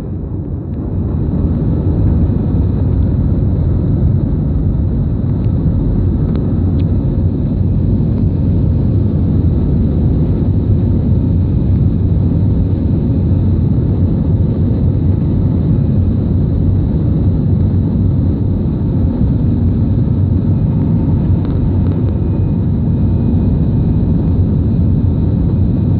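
Airbus A319 airliner engines and airflow, a loud steady low rumble during the climb after takeoff.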